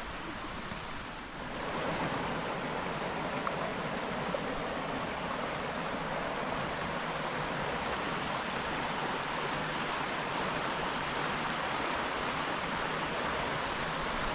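Steady rushing of flowing water from a stream, growing louder about a second and a half in.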